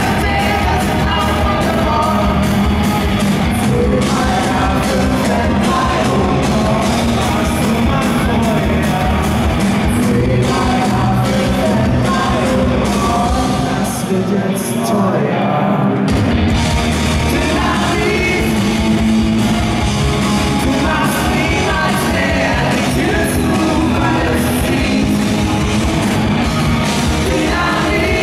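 Rock band playing live with a sung lead vocal over electric guitar, bass and drums. About halfway through, the bass and drums drop out for roughly two seconds, then the full band comes back in.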